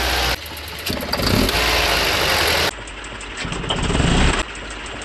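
Volvo B230F four-cylinder engine revved in short blips from idle, each rise cut off sharply as the throttle snaps shut, with a light pinging rattle as the throttle opens: detonation from ignition timing set too far advanced.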